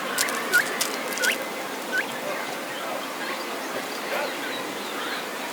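Cape spurfowl giving a few short, sharp, upward-hooked call notes, about two-thirds of a second apart in the first two seconds, over a steady background hiss.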